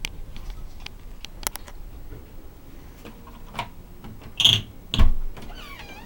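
Scattered light clicks and a loud knock about five seconds in, then a cat starts meowing near the end.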